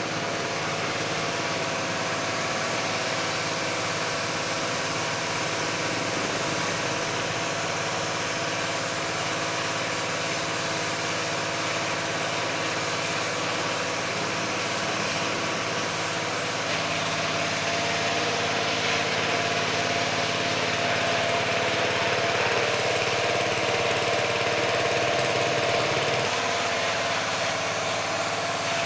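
Lakoni Daytona 120 G pressure washer running steadily with the hiss of its water spray. It gets somewhat louder for several seconds in the second half, then drops back.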